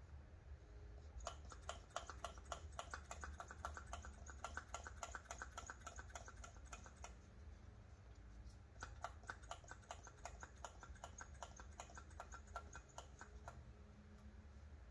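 Hand-operated brake bleeder pump being worked quickly to draw old brake fluid out of a caliper, giving rapid regular clicks, about five a second. The clicks come in two runs, the first starting about a second in and the second after a short pause near the middle.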